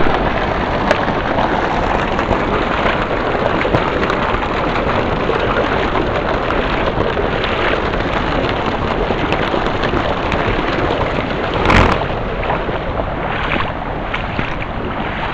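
Shallow creek water running and rippling over a sandy, gravelly bed as a steady rush. One brief bump about three-quarters of the way through.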